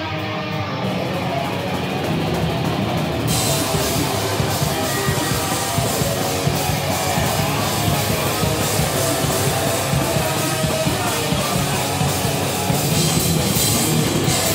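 Live heavy band playing loud: electric guitar riffing over a drum kit, with the cymbals and full kit crashing in about three seconds in.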